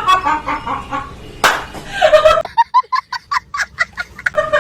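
A single sharp smack, then high-pitched rapid laughter: a run of short 'he-he-he' pulses, about eight a second, lasting nearly two seconds.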